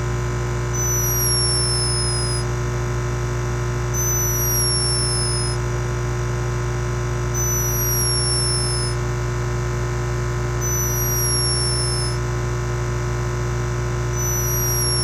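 A sleeping hummingbird gives a thin, high whistle that falls in pitch, five times about three seconds apart, over a steady hum.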